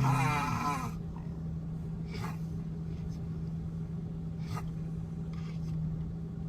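A person snoring in a moving car: short, noisy snore breaths every couple of seconds over the car's steady low drone. A wavering, voice-like sound fills the first second.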